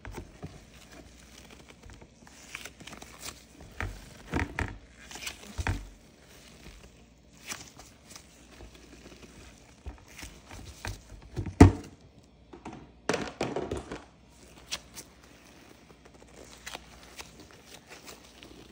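Cloud slime being squeezed, folded and pulled apart in gloved hands: irregular soft crackling, crinkling and tearing squishes, with one louder thump a little past halfway.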